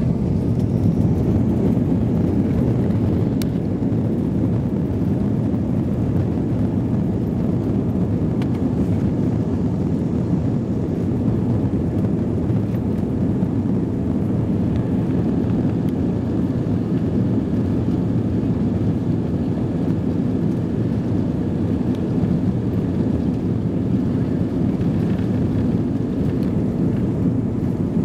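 Steady low rumble of an Airbus A320's engines and airframe heard from inside the passenger cabin as the jet rolls along the ground.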